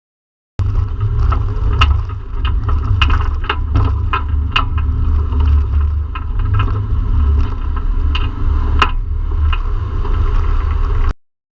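Off-road vehicle crawling over rough, rocky ground: a steady low rumble with irregular sharp knocks and clatters. It starts abruptly about half a second in and cuts off near the end.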